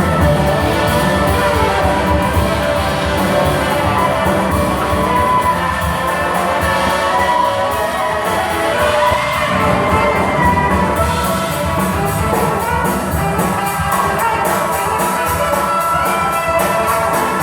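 Instrumental music with brass instruments playing continuously.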